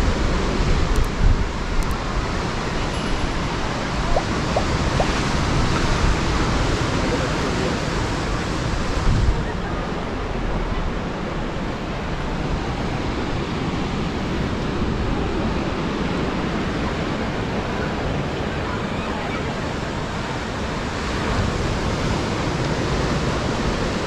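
Ocean surf washing in steadily and swelling in loudness, with gusts of wind buffeting the microphone.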